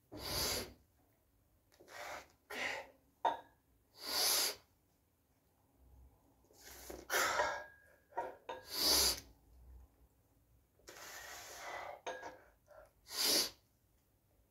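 A man breathing out hard in short, noisy bursts, about eight of them at irregular intervals of one to two seconds: effort breaths with each lift of a pair of dumbbells. A few short sharp clicks fall between the breaths.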